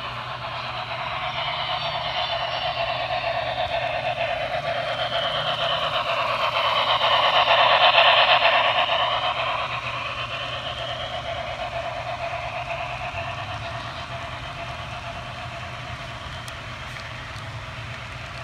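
HO-scale model freight train, led by a Broadway Limited 4-8-2 Mountain steam locomotive, running on the layout's track. The steady rolling rumble of its motor and wheels builds as the engine approaches and passes close about eight seconds in, then fades as the freight cars roll by.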